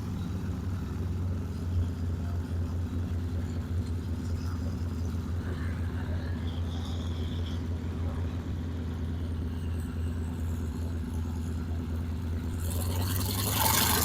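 Vintage piston-engined airplane droning steadily with a low hum. Near the end a louder rushing noise builds up.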